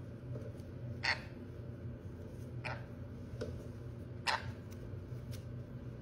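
Sun conure giving three short, harsh chirps about a second and a half apart, over a low steady hum.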